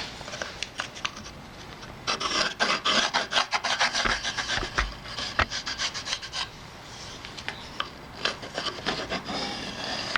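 Pencil scratching along wood as a line is traced, a quick run of short, uneven rubbing strokes that is busiest from about two seconds in until about seven.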